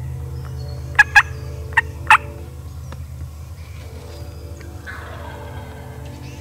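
Wild turkey calling: four loud, short, sharp yelping notes in quick succession about a second in, over a steady low hum.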